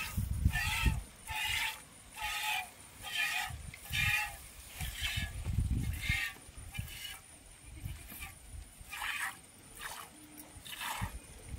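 Goat being milked by hand: short squirts of milk hitting a pail in a steady rhythm, roughly one a second, with a few low knocks.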